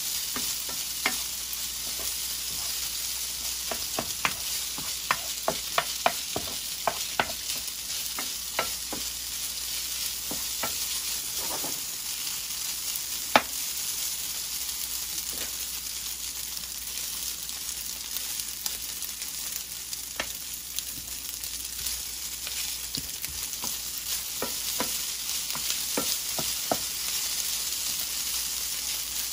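Steak fried rice sizzling in a nonstick skillet as a wooden spatula stirs and scrapes it, with frequent clicks and taps of the spatula on the pan. There is one sharper knock about halfway through.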